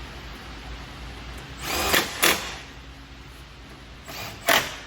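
Power tool running in three short bursts, driving nuts or bolts home.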